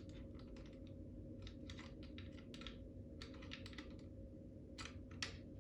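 Faint, quick, irregular light clicks and rattles from a smoke alarm and its 9-volt battery being handled during a battery test, over a low steady hum.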